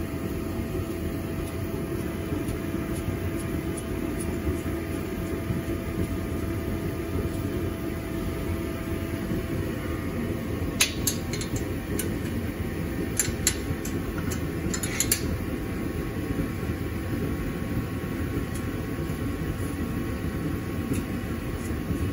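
Steady fan-like mechanical hum. About halfway through, a short run of sharp metallic clicks from a hand wrench working the exhaust mount bolts under a Kawasaki KRX.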